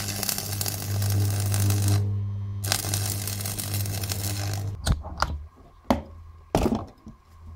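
Stick (arc) welding with a Clarke arc welder: the arc crackles and hisses in two runs of about two seconds each with a short break between, over the welder's steady mains hum. Near the end the arc is off and a few sharp knocks follow.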